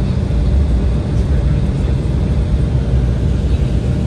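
Steady low rumble of an Embraer 175's GE CF34-8E turbofan engines at taxi power, heard from inside the passenger cabin.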